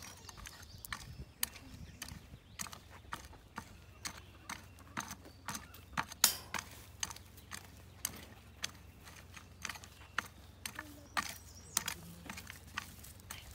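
Garden hoe chopping and scraping through dry, cloddy soil, pulling dirt over a planted row of bean seeds. Short strikes come about twice a second, with one louder strike about six seconds in.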